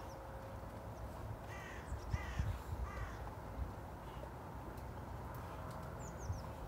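A crow cawing twice, about one and a half and two and a half seconds in, over a steady low rumble, with a few faint high chirps from a small bird near the end.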